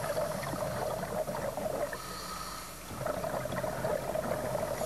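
Underwater scuba breathing: the regulator exhausts a crackling stream of bubbles as a diver exhales. It eases off for about a second near the middle, then bubbles again.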